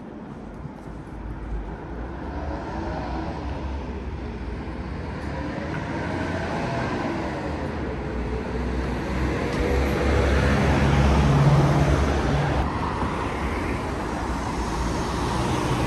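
City street traffic: a motor vehicle's engine and tyres growing steadily louder as it approaches and passes close, with a deep rumble and a slowly shifting engine pitch, then easing off a little near the end.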